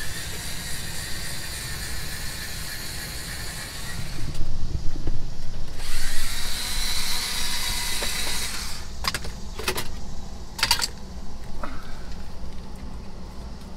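Cordless power driver spinning in two runs of a few seconds each, with a steady high whine, then several sharp clicks.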